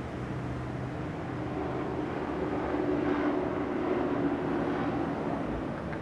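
A steady low rumble with a faint hum through it, swelling a little midway and then easing off.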